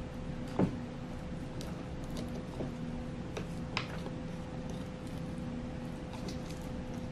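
Sulcata tortoise biting and chewing chopped vegetables: a few sharp clicks and one louder knock about half a second in, over a steady background hum.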